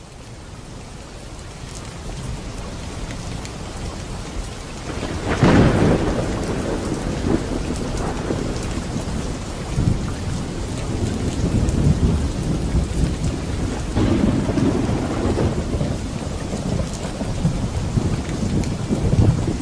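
Heavy rain pouring steadily, swelling up at the start, with a sharp thunderclap about five seconds in that rolls into a low rumble, and more rolling thunder later on.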